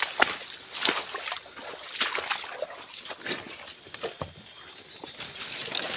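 Footsteps pushing through wet swamp undergrowth, uneven steps with sloshing and rustling, over a steady high-pitched insect chorus.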